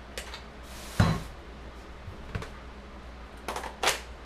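Handling noises of cordless power tools being picked up: a thump about a second in, a single click a little later, and a quick run of clicks near the end. No tool motor runs.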